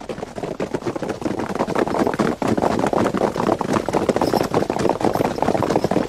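Hoofbeats of a large body of horses, a dense clatter that grows louder over the first two seconds and then holds steady.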